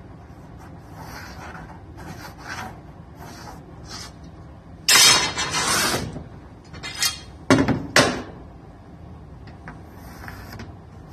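A thin luan plywood sheet scraping and sliding across the floor as it is pushed into place, loudest for about a second midway through, with softer rubs around it. Two sharp knocks about half a second apart follow shortly after.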